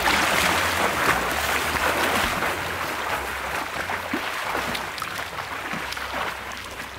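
A swimmer splashing in a pool: a burst of splashing as he pushes off from the edge, then his strokes splashing steadily and growing fainter as he swims away.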